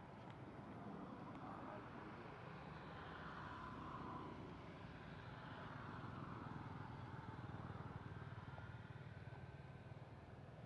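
Faint, steady low rumble of outdoor background noise, swelling slightly through the middle.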